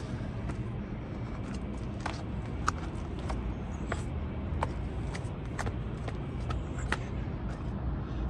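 Steady road-traffic rumble with light, irregularly spaced clicks and taps over it.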